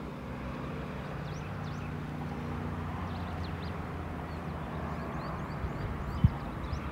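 Car engine and road noise while driving: a steady low drone, with faint short high chirps over it.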